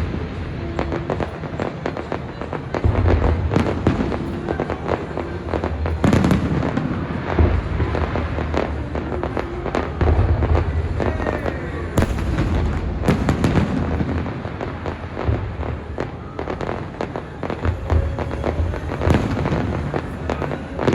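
Fireworks shells bursting in quick succession with sharp bangs and crackling, over the show's music soundtrack playing through loudspeakers.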